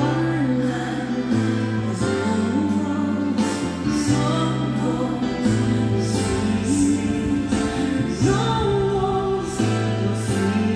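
Background music: a slow waltz song with singing over held bass notes and a soft, even beat.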